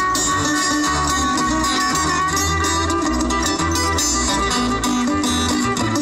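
Acoustic folk string band playing live: bowed fiddle over strummed acoustic guitars and banjo, with an acoustic bass guitar's notes pulsing underneath.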